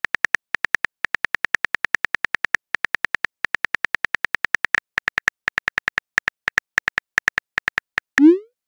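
Simulated phone-keyboard key clicks, about eight a second with short pauses, as a text message is typed out. Near the end a short rising swoosh plays as the message is sent.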